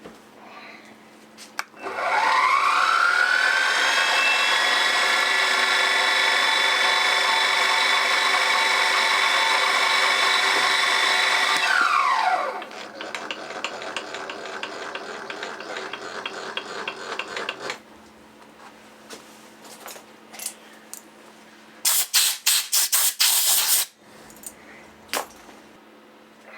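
Small machine-tool spindle motor spinning up with a rising whine, running steadily for about ten seconds while drilling a clearance hole in a small stainless part, then winding down. A quieter steady running sound follows for a few seconds, with scattered clicks, and about two seconds of loud rasping noise come near the end.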